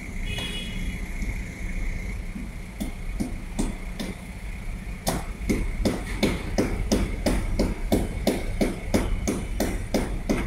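A steady low hum, joined a few seconds in by sharp knocks that soon settle into an even series of about three a second.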